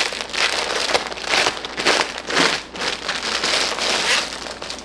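Clear plastic packaging of a cross-stitch kit crinkling and rustling in a run of irregular crackles as hands open it.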